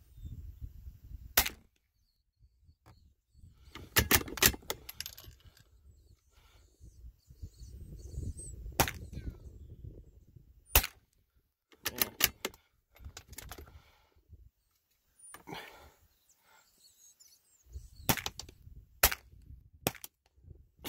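Rifle shots: about a dozen sharp cracks at uneven intervals, some in quick clusters, with a low rumble between them.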